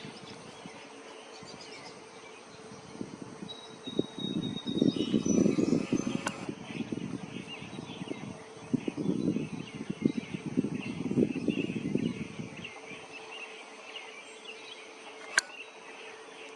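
Outdoor ambience with small birds chirping faintly, high and thin. Low, rough fluttering noise comes and goes twice, and there is a sharp click around the middle and another near the end.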